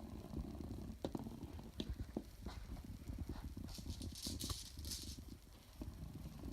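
Marbles rolling along a marble run made of cut pool noodle and Lego Duplo blocks: a steady low rumble with many small rattling clicks and knocks.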